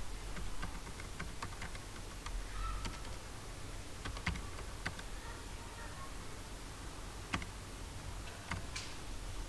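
Computer keyboard being typed, with scattered, unevenly spaced keystrokes over a steady low hum.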